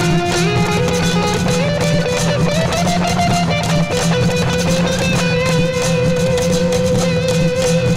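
Layered live-looped music: guitar over a steady percussive beat, with a melody line that settles on one long held note about halfway through.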